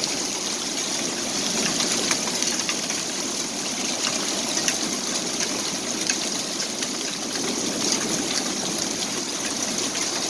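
Heavy rain pouring steadily during a thunderstorm, with many small sharp ticks of drops striking nearby surfaces.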